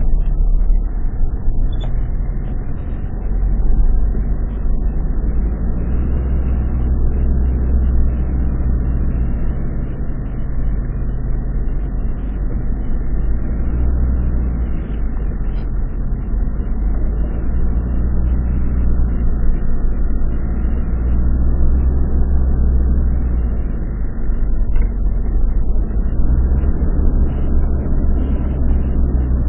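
Off-road vehicle driving: a steady, loud low engine and drivetrain rumble that swells and eases a little, dipping briefly about three seconds in and again near twenty-four seconds.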